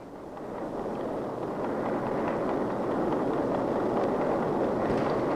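Steady machinery noise from a concrete-casting plant making tunnel-lining sections, fading in over the first two seconds and then holding at an even level.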